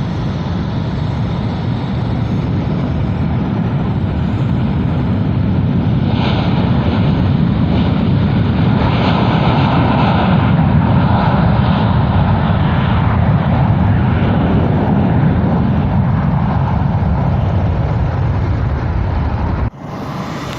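Airbus A330 jet engines at takeoff thrust, a steady rumbling noise that builds over the first few seconds and is loudest in the middle. The sound drops abruptly about a second before the end.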